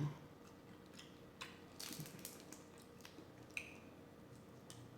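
Scattered faint clicks, crackles and wet squishes of crawfish shells being cracked and peeled in butter sauce, with a cluster of them about two seconds in.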